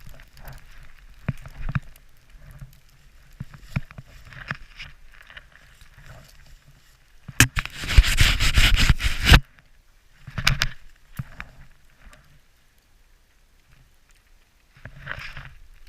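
Skis swishing and scraping through powder snow in a blizzard, in uneven bursts, with snow and wind rushing against the camera microphone. The loudest rush comes about seven and a half seconds in and lasts about two seconds.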